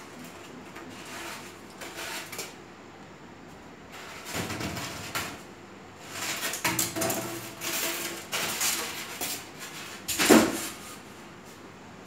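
A refrigerator being handled and shifted by hand: scraping and rubbing in spells, then one loud knock about ten seconds in.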